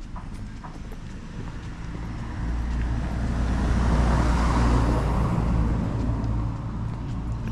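A car passing by on the street. Its engine and tyre noise builds to a peak about halfway through, then fades away.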